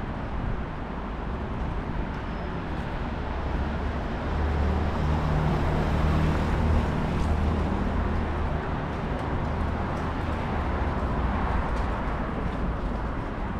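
Road traffic: a steady wash of tyre and engine noise, with a vehicle's low engine rumble swelling as it passes about four to nine seconds in.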